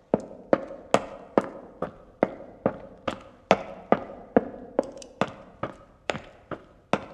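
Footsteps of one man walking indoors at a steady, brisk pace, about two and a half steps a second. Each step is a sharp strike followed by a short room echo.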